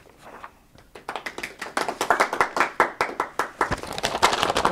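A small audience applauding: dense, irregular clapping that starts about a second in and grows louder.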